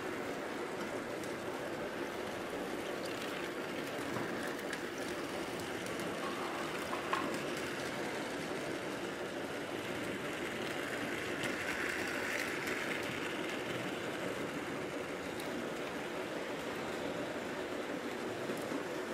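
Old tinplate toy trains and toy vehicles running on their tin tracks: a steady whirring rattle, with a single click about seven seconds in.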